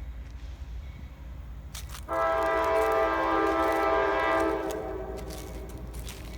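Freight locomotive air horn sounding one long chord starting about two seconds in, holding for a couple of seconds and then trailing away, over a low steady rumble.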